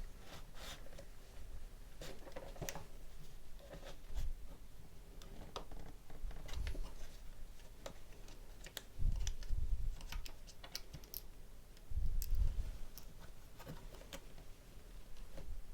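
Scattered small clicks and taps of laptop parts being handled and fitted by hand, with heavier low bumps about nine and twelve seconds in.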